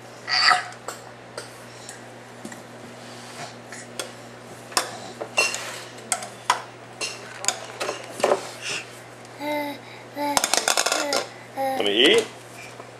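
A baby handling a small megaphone, knocking and clattering it against a chair and the floor in irregular clicks and knocks, with a quick run of clatter late on. Short baby vocal sounds come in the second half, and a loud rising squeal near the end.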